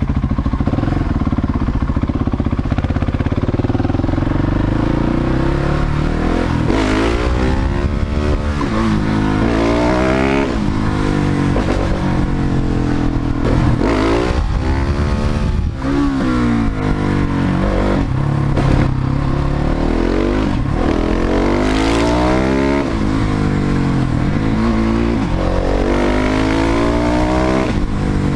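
Husqvarna 701 Supermoto's single-cylinder engine idling for a few seconds, then pulling away. It accelerates through the gears, its pitch climbing and dropping several times as the rider shifts up.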